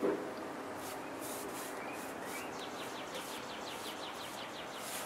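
Paintbrush strokes on a boat transom, a short soft brushing sound about every third of a second as paint is worked in. From about halfway a bird gives a quick run of chirps in the background.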